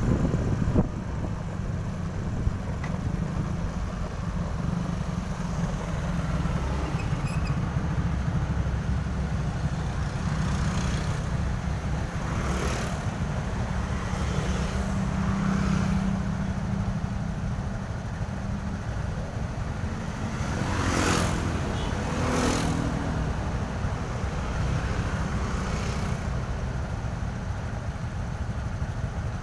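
Steady road traffic noise with a low engine rumble. Vehicles pass close by a few times, about twelve seconds in and twice around twenty-one to twenty-three seconds in.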